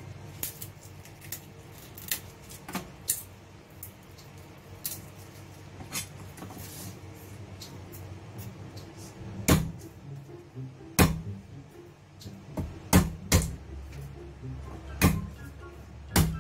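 Garlic skins crackling faintly as cloves are peeled by hand. From about halfway in, a Chinese cleaver comes down on the cloves on a thick wooden chopping board to smash them: about seven sharp knocks, three of them in quick succession.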